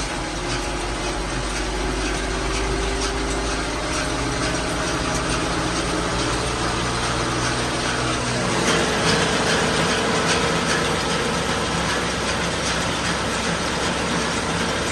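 John Deere tractor engine running the baler with the PTO engaged, revving up slowly: its pitch climbs steadily for about eight seconds, then holds at a higher speed while the baler's driveline and pickup clatter along.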